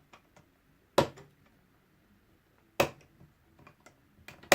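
Two sharp clicks, about two seconds apart, with a few faint ticks between: small plastic model parts and hobby tools handled on a work desk.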